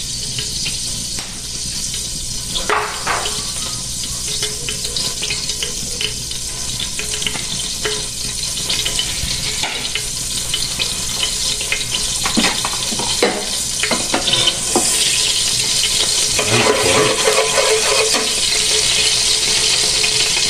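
Cooking oil heating in a pan, sizzling with a steady hiss and scattered crackles, getting louder about fifteen seconds in. Near the end a spatula stirs and scrapes in the pan.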